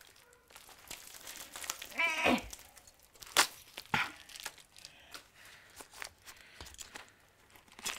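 Plastic wrapping crinkling and tearing as it is worked loose from the top of a cylindrical container, with scattered sharp clicks and crackles. A brief vocal sound about two seconds in.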